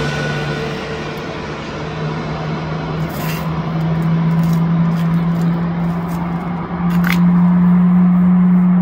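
Jet engines of an Airbus A320-family airliner rushing as it passes low overhead on final approach and draws away, with a steady low hum that steps up in pitch and grows louder near the end, and a few faint clicks.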